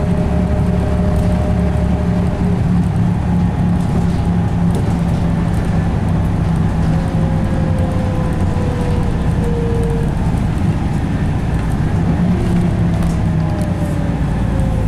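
Volvo B7RLE bus heard from inside the saloon while under way: the six-cylinder diesel running steadily with road noise, and a thin whine from the ZF automatic gearbox that slides slowly in pitch as the speed changes.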